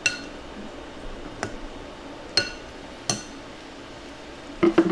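An eating utensil clinking against a ceramic dish while cutting up pork-stuffed bitter melon: a few separate sharp clinks that ring briefly, then a quick run of taps near the end.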